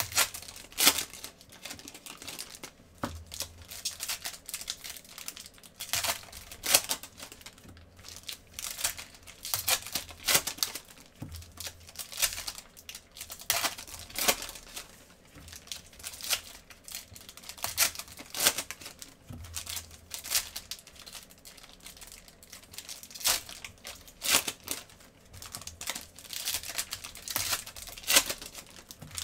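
Foil wrappers of Prizm basketball card packs crinkling and tearing as they are ripped open by hand, in irregular sharp bursts.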